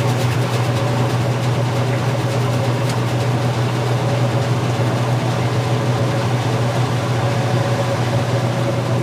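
Old washing machine running with a steady, even low motor hum and a faint higher tone above it.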